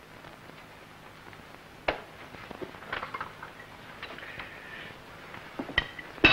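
Quiet room tone with a few scattered light clicks and knocks, a sharper one about two seconds in and a couple more near the end.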